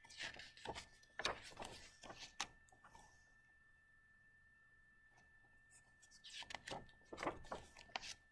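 Pages of a hardcover picture book being turned and handled: soft paper rustles and light clicks in two short spells, the first right at the start and the second about six seconds in, with quiet between.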